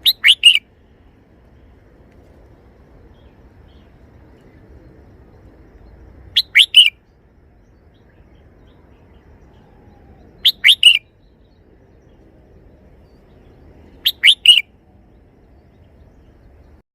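Red-whiskered bulbul singing its short three-syllable phrase four times, a few seconds apart, each a quick run of high, clear notes.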